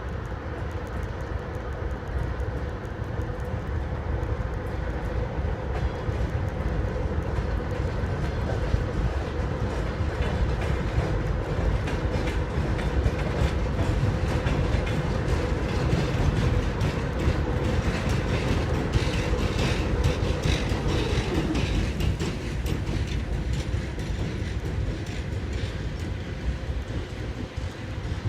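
Freight train hauled by a VL80k electric locomotive rolling past, its wagon wheels clattering rapidly over the rail joints under a steady rumble. A steady hum runs underneath and drops in pitch about two-thirds of the way through.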